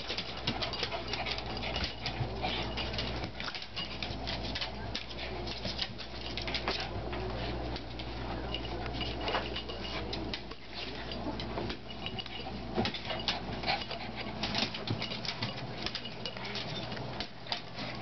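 Two small dogs play-wrestling on a hardwood floor: claws clicking and scrabbling on the wood as they scuffle, in quick irregular ticks.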